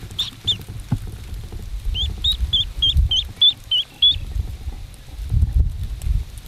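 Hatching mallard duckling peeping in short high peeps: a couple near the start, then a quick run of about eight about two seconds in. Low wind rumble on the microphone runs underneath.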